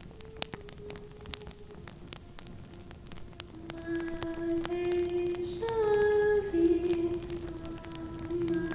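Slow music of long held notes that slide gently in pitch, faint at first and louder from about halfway in, over a scattering of sharp crackling clicks.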